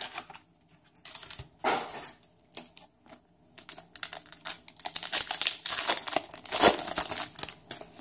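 Foil booster-pack wrapper crinkling and rustling in the hands, with cards being handled. The crackle comes in irregular bursts that grow denser from about halfway through.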